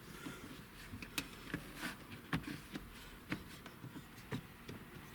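Plastic interior trim pieces being handled and pressed into place, giving a string of light, irregular clicks and knocks, about two a second.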